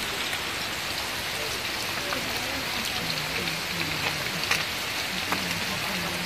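Small fish frying in oil in a wok, a steady sizzle with scattered sharp pops and spits as the fish are turned.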